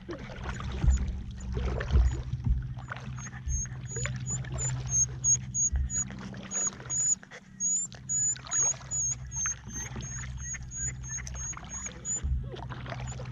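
Kayak paddling: paddle strokes dipping and splashing in the water, with a few dull knocks against the hull.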